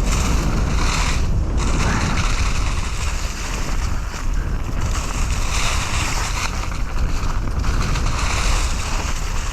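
Wind rushing and buffeting over the microphone of a riding mountain biker, mixed with the hiss of the bike's tyres rolling over the trail, swelling and easing as he rides.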